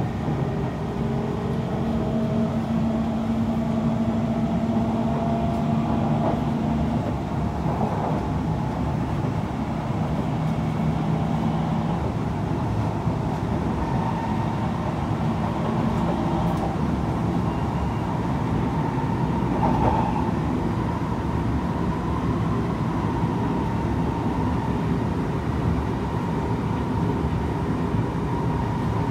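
Kawasaki C151 metro train in motion, heard from inside the car: a steady rumble of wheels on track with the traction motors' steady tones, which shift pitch a few times.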